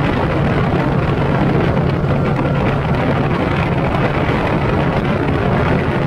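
Evinrude G2 two-stroke outboard running steadily at high revs, about 5,100 rpm, with the boat on plane at about 42 mph. The engine's low, even tone sits under a steady rush of wind and water noise.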